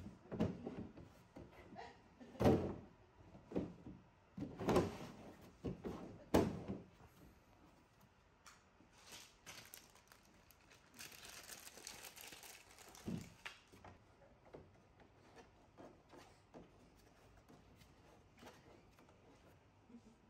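Hollow knocks and thunks of the IFAM Easy Wave bookshelf's moulded plastic panels being pushed into their slots by hand, about six in the first seven seconds, then fainter handling with one more knock a few seconds later.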